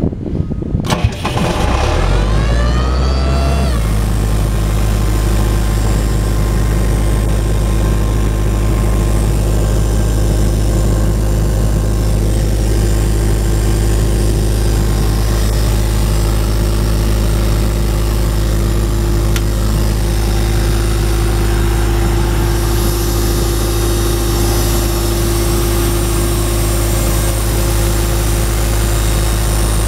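Self-contained air compressor's John Deere four-cylinder diesel engine cranked on the key. It catches about a second in, speeds up for a couple of seconds, then settles into a steady run.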